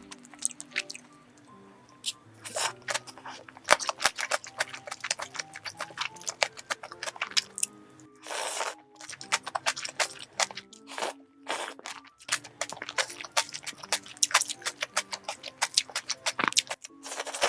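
Close-up eating sounds, dense crunching, chewing and mouth clicks from a meal of bibim naengmyeon cold noodles and dumplings, over soft background music.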